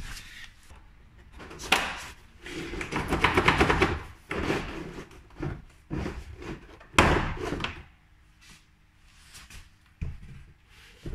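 Plastic side skirt of a running board being pulled and handled, giving irregular scrapes, clicks and knocks with one sharp bang about seven seconds in, then a few faint rustles.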